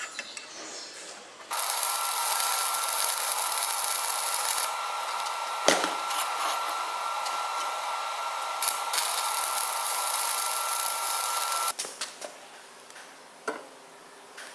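Stick welding: the electrode's arc makes a steady hiss that starts suddenly about a second and a half in and cuts off near the end. A thin steady whine runs under it, and there is a sharp tick partway through.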